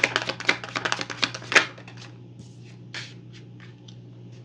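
A tarot deck being shuffled by hand: rapid riffling card clicks for about the first two seconds, then a few scattered card taps.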